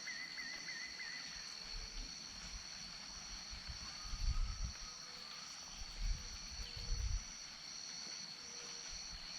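Wetland night-and-dusk chorus: insects droning steadily in two high, even tones, with a rapid warbling animal call in the first second and faint scattered short calls below it. Low rumbling thumps come about four seconds in and again around six to seven seconds in.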